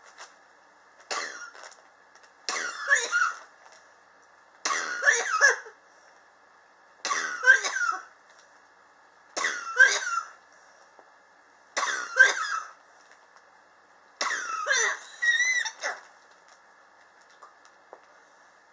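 A person coughing in seven short fits about two seconds apart, each fit made of two or three coughs. It is the persistent, long-standing cough of someone who has been coughing for years.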